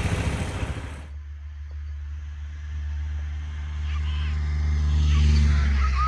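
The engine of a vehicle towing a kayak as a sled over snow, running with a steady low drone that grows louder about five seconds in, then eases off near the end.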